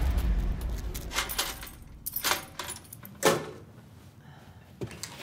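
A low street rumble in the first second, then a few short, sharp clinks and rattles of small hard objects being handled, about a second apart.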